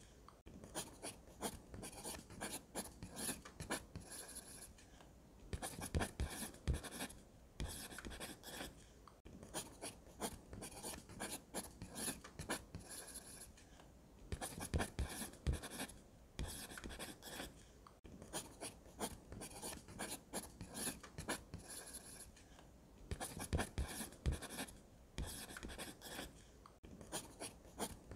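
Pencil scratching on drawing paper in quick sketching and shading strokes, in runs of a few seconds broken by short pauses.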